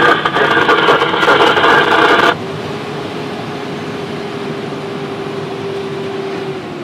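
A loud, crackling radio transmission in the fire engine's cab cuts off abruptly about two seconds in. The engine and road noise of the moving fire engine then carry on as a steady drone with one steady hum, which dips slightly in pitch near the end.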